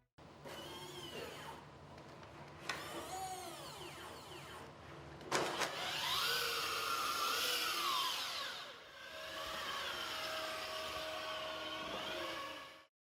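Robot-movement foley: a small motor whirring in a string of whines that glide up and down in pitch, like servos moving, with a couple of sharp clicks in the first half.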